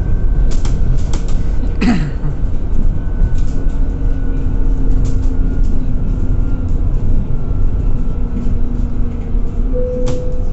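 Inside a Scania Citywide 12LF CNG city bus under way: a steady low rumble from the gas engine and road, with frequent small rattles and clicks from the cabin fittings. A short falling squeal comes about two seconds in.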